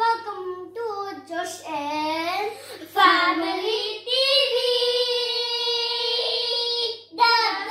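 A child singing in a high voice: sliding notes at first, then a long held note from about three seconds in until near the end.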